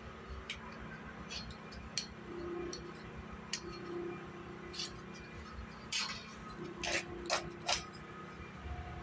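Plastic spice bottles being handled: a series of light clicks and taps, with the loudest four coming close together about six to eight seconds in.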